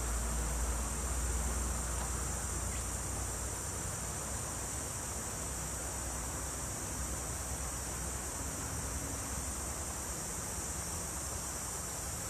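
Insects giving a steady high-pitched drone, with a low rumble underneath that fades out a few seconds in.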